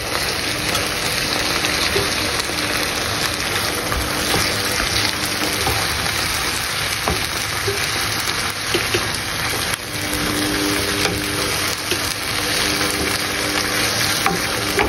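Food sizzling steadily as it fries in a pan, with a few light clicks.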